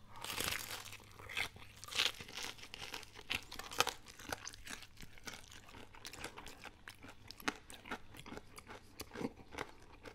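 Biting into crispy-battered Popeyes fried chicken dipped in cheese sauce: a loud crunch of the breading in the first second, further crunches around two and four seconds in, then close-up chewing with many small crackles.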